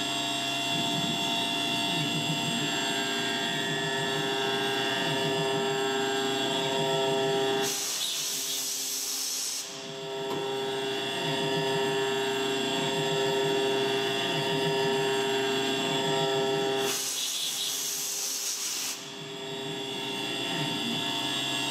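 CNC gantry mill's spindle and end mill cutting a helical boring finish pass in a metal bore. It is a steady machine whine of many tones with a lower tone wavering up and down. Twice a hiss rises for about two seconds.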